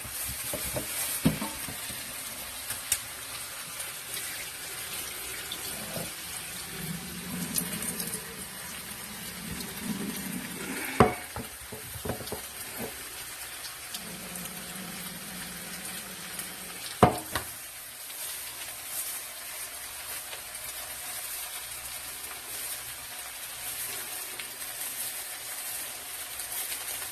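Food frying in pork fat in a pan, a steady sizzle, with two sharp knocks about eleven and seventeen seconds in.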